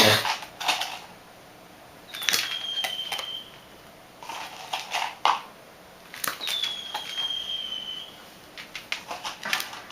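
Firecracker sound effect played back: five bursts of rapid crackling pops about two seconds apart, starting with a sharp bang, two of the bursts joined by a long, slightly falling whistle.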